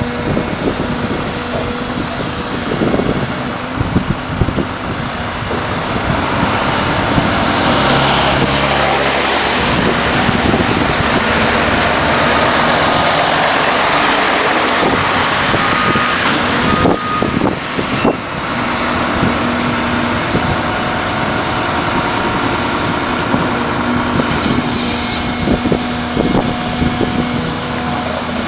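Gradall XL4300 II wheeled excavator's diesel engine running steadily while it works. From about six to seventeen seconds in, a large truck passes close by on the wet road, its engine and tyre hiss on the wet asphalt swelling and then fading.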